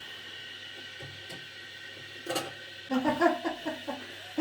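Water running into a newly installed toilet cistern as it fills, a steady faint hiss. A sharp knock comes a little past halfway, then short vocal sounds near the end.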